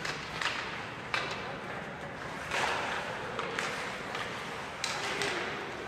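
Ice hockey play: sharp clacks of sticks and puck several times, and a longer hiss of skate blades scraping the ice, over the rink's background noise.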